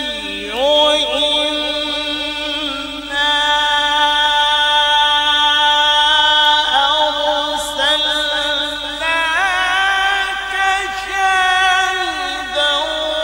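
Male qari reciting the Quran in the melodic tilawat style: long, held notes with wavering ornaments that glide up and down. New phrases begin about three seconds in, near seven seconds, and again near nine and twelve seconds.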